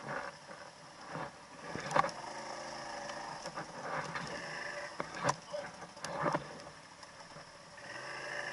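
ATV engine running at low speed while the quad crawls over rough ground, with several sharp knocks and clatters from the machine jolting, the loudest about two and five seconds in.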